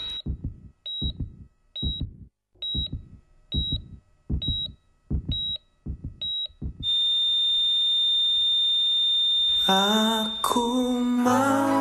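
Heart-monitor sound effect: eight short high beeps, a little under one a second, each over a low thud like a heartbeat. Then one long unbroken beep at the same pitch, held for about three seconds: a flatline. Music comes back in near the end.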